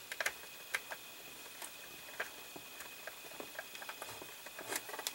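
Small screwdriver turning a tiny metal screw into a plastic scale-model panel, with scattered light clicks and taps of hard plastic parts being handled; the clicks bunch at the start and again near the end.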